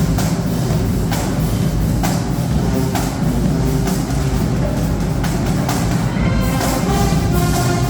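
High school marching band playing: brass holding pitched notes over drums, with sharp percussion strokes roughly once a second.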